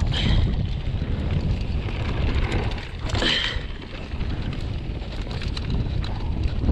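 Wind buffeting the microphone as a mountain bike rolls down a dirt trail, with tyre rumble and rattling clicks from the bike over rough ground. Two brief higher hissing bursts come about three seconds apart.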